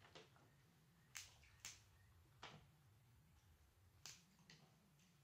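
Near silence with a low steady hum, broken by about six faint, sharp clicks and snaps from people eating crab: shell being picked apart and utensils.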